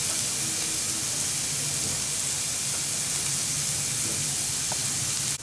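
Sliced onions, garlic and green chillies sizzling in hot oil in a nonstick frying pan: a steady, even hiss that stops abruptly near the end.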